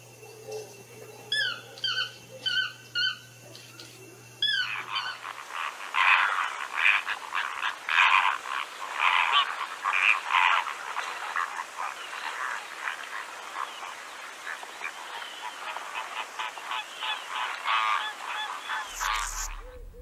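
A toucan's short yelping calls, a few quick slurred notes at a time, then from about four and a half seconds in a busy, louder chorus of ducks quacking and honking that runs until a cut near the end.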